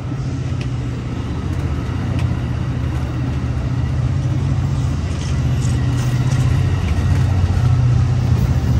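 Amtrak California bilevel passenger train pulling out past the platform: a steady low rumble and hum of the moving train, slowly getting louder.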